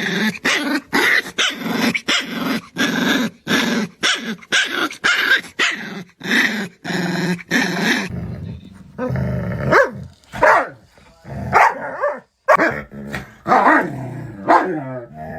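A dog growling and barking in a rapid string of short, loud outbursts, about two a second. About eight seconds in, this gives way to dog vocalizations that slide up and down in pitch.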